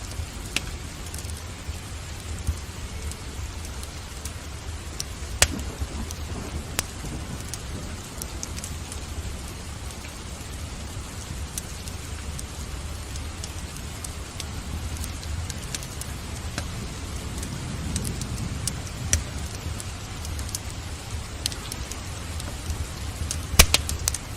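Steady rain together with a wood fire crackling in a fireplace, over a constant low rumble. Sharp pops come at scattered moments, the loudest two in quick succession near the end.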